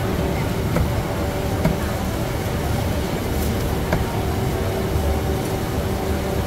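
Busy street-market ambience: a steady low rumble and hum with indistinct crowd chatter, broken by a few scattered sharp knocks.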